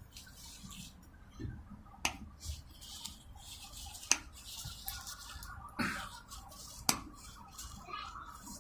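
Rusty steel pliers being worked open and closed by hand, their seized joint loosening under penetrating oil: three sharp metal clicks spread over the stretch, with softer knocks and scraping between them.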